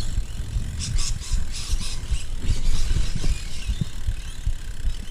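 BMX bike being ridden on a street spot: a steady low rumble of rolling tyres, with a quick run of short scrapes about one to two seconds in.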